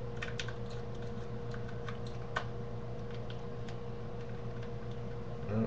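Scattered light clicks and taps of fingers working a SIM card into a small plastic handheld device, over a steady low electrical hum.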